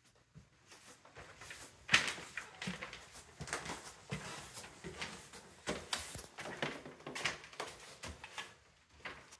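Footsteps, about two a second, with crinkling of the paper laid over the floor as protection.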